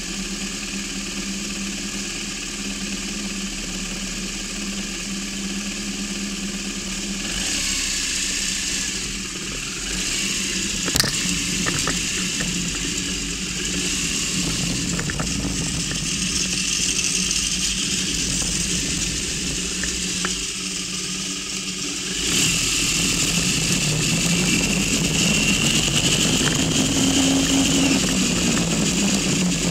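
Motorcycle engine idling steadily, then running as the bike rides off down the street, with road and wind noise on the bike-mounted microphone. About three-quarters of the way through it gets louder, the engine pitch rising and falling as it accelerates. There is a single sharp click about 11 seconds in.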